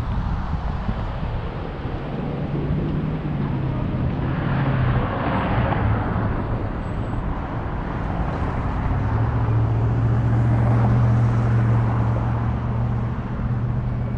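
Road and traffic noise heard from a vehicle driving on a city street, with a swell of passing-vehicle noise about five seconds in and a steady low engine hum in the second half.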